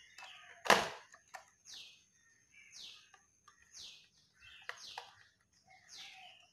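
A bird chirping over and over, short falling chirps about once a second. A sharp knock comes about a second in, and a few light clicks follow.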